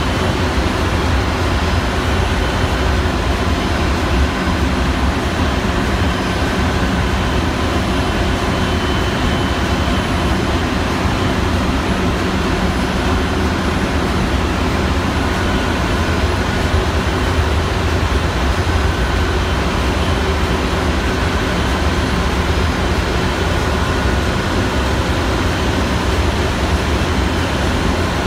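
Ship's engine-room machinery running: a loud, steady, deep drone with a constant hum over it, unchanging throughout.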